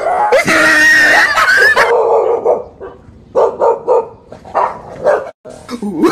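Dogs barking and yelping: a long, high cry in the first couple of seconds, then a quick run of short barks about three to five seconds in.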